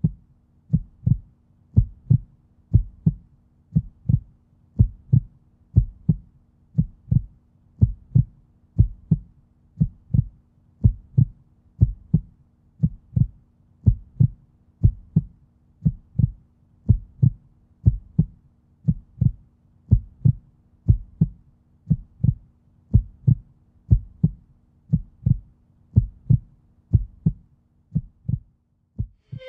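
Heartbeat sound, a steady double thump (lub-dub) about once a second, over a faint steady low hum.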